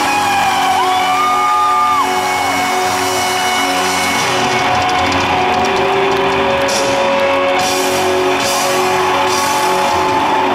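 Live rock band in a large arena: an electric guitar plays sustained lead notes that bend and glide in pitch over bass and drums, with cymbals coming in about four seconds in.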